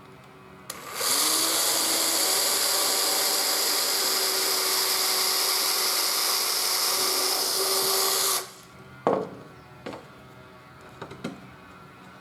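Electric drill spinning up about a second in and running steadily for about seven seconds as it bores through plywood, then stopping sharply. A few short knocks follow.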